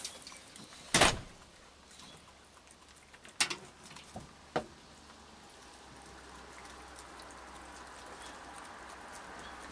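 Raccoons feeding on sunflower seeds and kibble on a wooden deck: scattered light clicks and taps, with one sharp knock about a second in. A faint hiss slowly grows louder in the second half.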